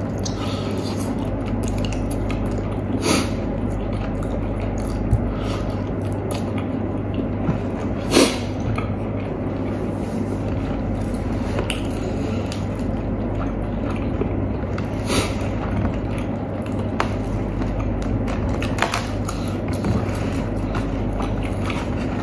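Close-miked eating of crispy fried chicken: chewing and wet mouth sounds with a handful of short sharp crunches or smacks as the chicken is bitten and torn apart by hand, over a steady low hum.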